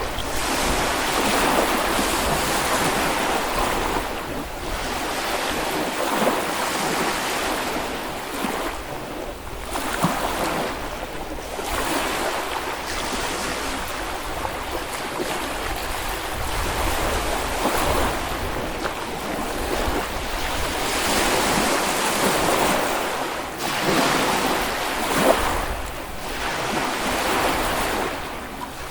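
Small Baltic Sea waves breaking and washing up on a sandy beach, a continuous surf hiss that swells and eases every few seconds.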